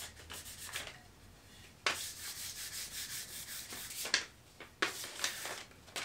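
Hand sanding a shellac-finished wooden wrist rest with fine sandpaper: a light scuff between coats to knock down roughness left by the first coat. A few quick short strokes, then one long stroke of about two seconds, then a shorter one near the end.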